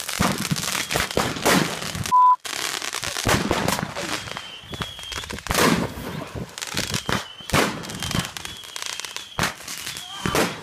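Fireworks going off at close range: a rapid, irregular run of sharp bangs and crackles, some of them with short high whistles. About two seconds in there is a short steady beep, the loudest sound here.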